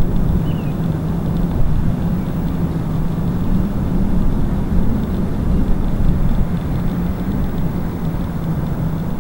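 Cirrus SR22T single-engine propeller aircraft running, a steady engine drone with a low rumble beneath it.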